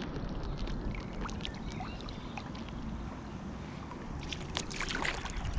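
Wind rumbling on the microphone over small clicks and lapping of water around a paddle board, with a short cluster of splashes and knocks about five seconds in.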